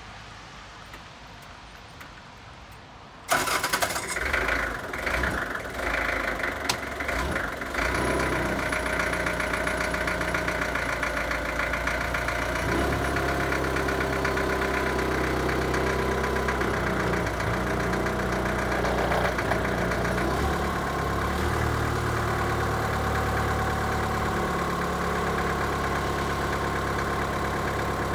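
1980 Mitsubishi FD25 diesel forklift engine starting about three seconds in, running unevenly for a few seconds, then settling into a steady diesel idle. Its note shifts a few times in the second half as the forks are raised on the mast.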